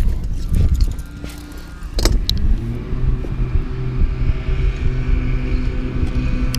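A motor engine running at a steady hum from about two and a half seconds in, its pitch rising briefly as it comes in. Before that there are low rumbling and a couple of sharp knocks.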